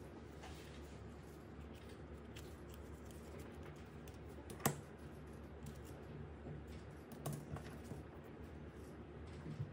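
Small toy puzzle pieces being handled and fitted together: light scattered clicks and taps, with one sharp click about halfway through and a few more near the end, over a low steady hum.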